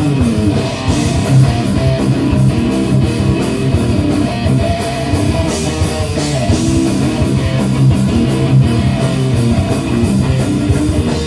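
Live rock band playing an instrumental passage between sung lines: electric guitars over a steady drum beat, with no vocals.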